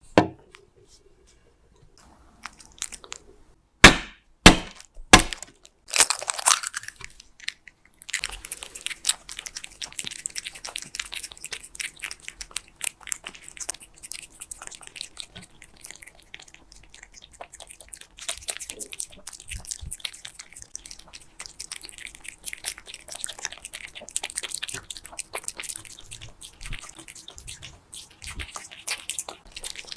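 Silver shaded cat eating close to the microphone: after a few loud sharp clicks about four seconds in, a steady run of small crunches and clicks of chewing.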